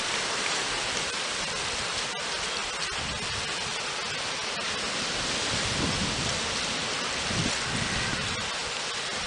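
Steady hiss of falling rain, with a couple of brief low rumbles in the second half.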